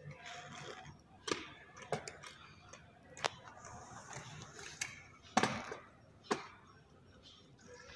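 Sporadic sharp clicks and knocks, irregularly spaced, about six in all and loudest a little past the middle, over a faint background murmur.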